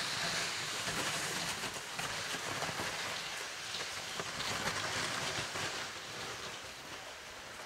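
Footsteps crunching in snow and a sled sliding over the snow behind them: a crackly hiss that fades slowly as they move away.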